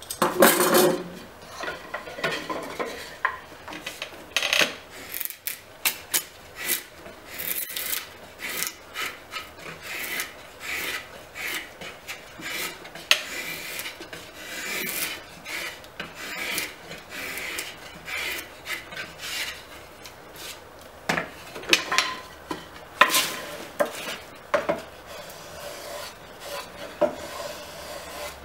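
Drawknife shaving a wooden bucket stave on a draw bench: a run of irregular scraping strokes as the blade is pulled along the wood, backing (shaping the outer face of) the stave.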